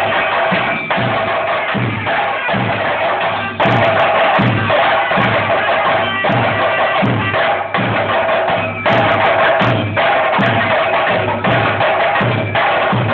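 Loud traditional Kerala ritual music: drums beaten in a steady rhythm, about two strokes a second, under a held reedy drone. The music gets louder suddenly about three and a half seconds in and again near nine seconds.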